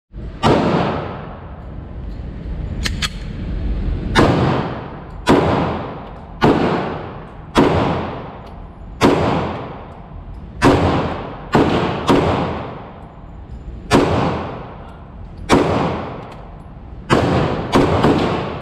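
Gunshots fired as a steady string of single shots, about one every one to one and a half seconds, each with a long echoing tail. A couple of fainter, sharper cracks come about three seconds in.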